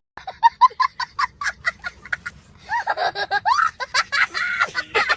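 Laughter: a quick run of short, high-pitched 'ha-ha' bursts for about two seconds, then longer laughing whoops with pitch swinging up and down.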